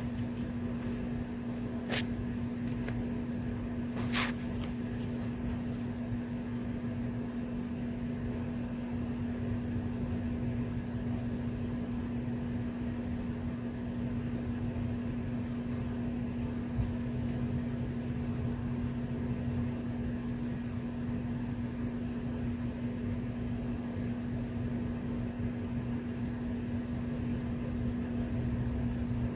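A steady electrical or mechanical hum with one constant low tone, a low rumble and an even hiss underneath, and two faint clicks in the first few seconds.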